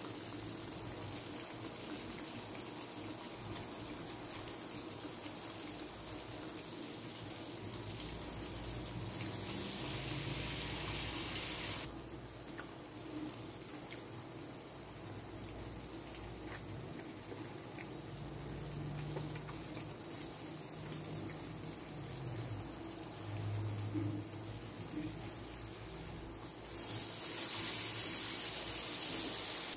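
Breaded chicken fillets frying in oil with a steady faint sizzle. A kitchen tap runs twice over it: once swelling about 8 seconds in and shutting off sharply about 4 seconds later, and again for the last few seconds.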